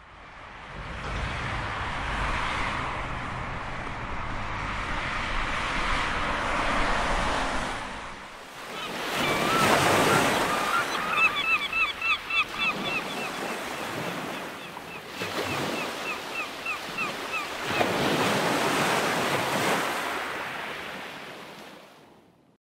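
A low rumble for about eight seconds, then ocean surf washing onto a sandy beach in several slow swells. A rapid run of short high chirps, about four a second, comes in over the surf about a third of the way through.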